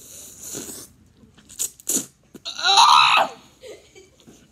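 Ramen noodles slurped noisily. A hissing suck fills the first second, two quick short slurps follow, and about two and a half seconds in comes a louder, squeaky slurp whose pitch wavers.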